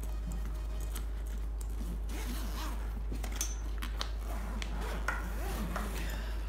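Zipper on the main compartment of a polyester duffel bag being pulled open by hand, a run of short raspy zip strokes with clicks of the slider and fabric handling. A steady low hum runs underneath.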